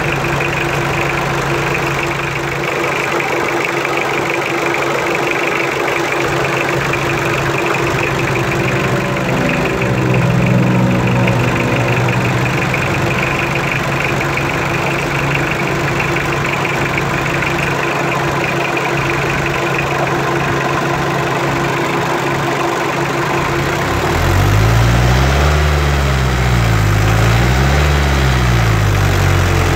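Toyota 2C four-cylinder diesel idling while its injection pump timing is being adjusted. It picks up briefly about ten seconds in, then is revved up and back down twice near the end.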